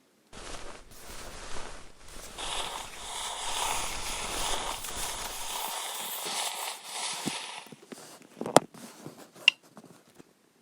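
Slime being pressed and squished by hand, giving a dense crackling for most of the stretch, then scattered sharp pops and clicks near the end.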